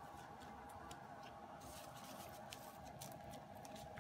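Faint handling noises as a small stack of photocards is picked up off a paper banner: soft rustles and many light ticks of card on paper and plastic, with a slightly longer rustle a little before halfway. A faint steady hum sits underneath.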